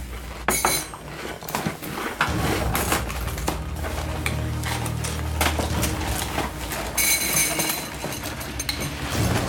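Spoons clinking and scraping in cereal bowls with quick, irregular clicks, as two people shovel down cereal in an eating race.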